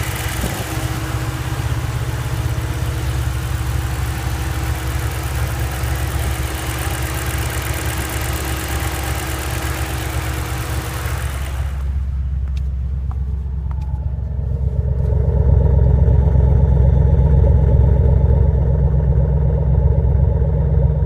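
2006 Mustang GT's 4.6L V8 engine running, the car whose owner is chasing a ticking noise and lost power. For the first half it has a bright, hissy edge over the engine note; about halfway through that bright edge cuts off suddenly, and a few seconds later a louder, deeper rumble takes over.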